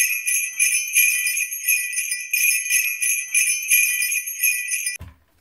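Sleigh bells jingling in an even rhythm, about three shakes a second, with no other instruments. They cut off suddenly about five seconds in.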